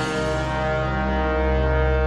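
Background music of held low tones under a sustained chord.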